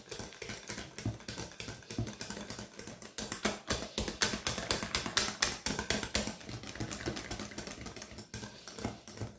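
Wire balloon whisk beating pancake batter in a glass mixing bowl: a fast, uneven run of clicks as the wires strike the glass, loudest in the middle.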